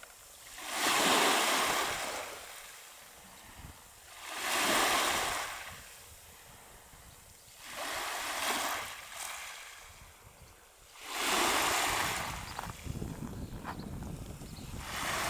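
Small waves breaking on a pebble beach, a swell of rushing, hissing water about every three and a half seconds as each wave washes up over the pebbles. A low rumble of wind on the microphone comes in during the last few seconds.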